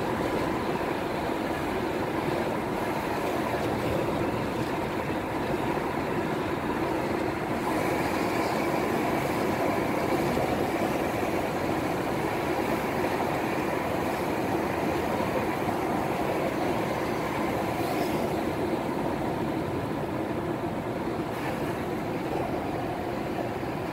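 A car driving at highway speed: a steady hum of tyres on the road and the engine running.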